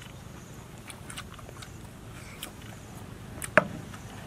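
People chewing boiled cow oviduct, with faint scattered clicks of eating and one sharp, loud knock about three and a half seconds in.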